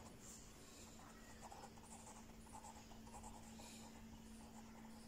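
Faint scratching of a pen writing in short strokes on lined notebook paper, over a faint steady hum.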